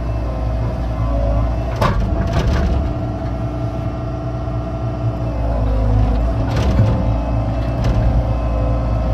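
Excavator's diesel engine running steadily under load while digging a ditch, with a few sharp cracks and knocks from the bucket working the ground, about two seconds in and again around six and a half and eight seconds.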